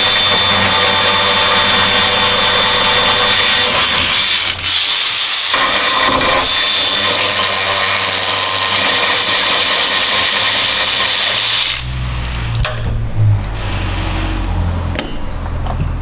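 Power ratchet spinning out radiator-support bolts: a loud, steady whir with hiss that dips briefly about five seconds in and stops about twelve seconds in. A lower rumble with a few knocks follows as the radiator is handled.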